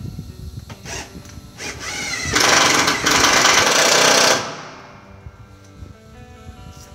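Cordless drill/driver driving a screw to fasten a door jamb back into its frame: a short rising whine, then about two seconds of steady driving with a brief break, stopping about four and a half seconds in.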